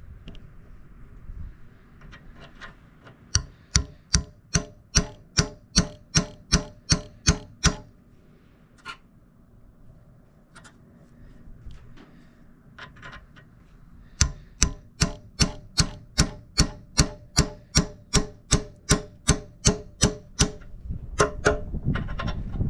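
Hammer tapping steel, driving a replacement excavator bucket tooth and its retaining pin into place. Two runs of steady, evenly spaced blows, about two or three a second, with a pause of a few single taps between them.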